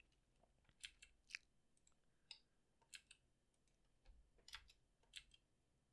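Faint, irregular clicking of a computer mouse and keyboard, about a dozen short clicks, against near silence.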